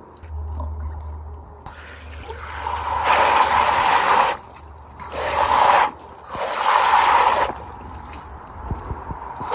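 Water from a pistol-grip garden hose spray nozzle hissing onto a salmon fillet as it is rinsed. The spray comes in three bursts, the first the longest, with short pauses between.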